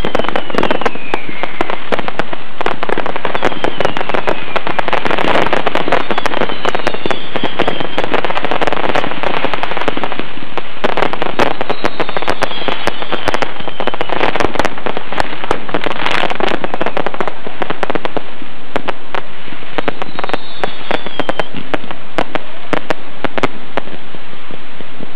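A dense, unbroken barrage of fireworks going off together: rapid cracks, bangs and crackling, with whistling rockets that fall in pitch several times. This is the display's remaining fireworks set off all at once after a misfired rocket ricocheted into them.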